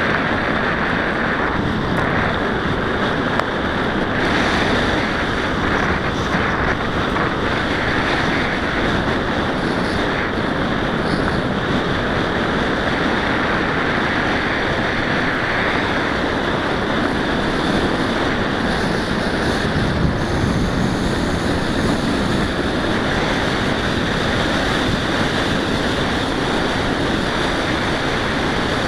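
Steady rush of wind buffeting the microphone of a moving mountain bike, mixed with the tyres rolling over a gravel and dirt track.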